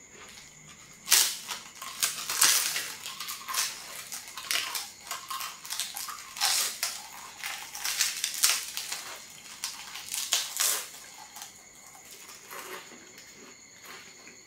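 Thin, crisp flatbread being bitten and chewed close to the microphone: a loud first crunch about a second in, then a dense run of sharp crackling crunches that thins out to a few soft chews after about eleven seconds.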